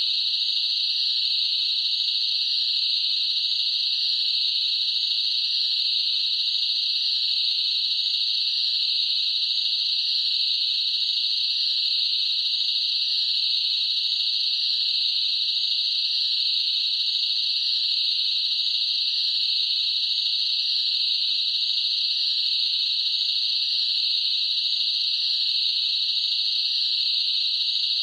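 Crickets chirping in a dense, steady chorus: one continuous high-pitched trill.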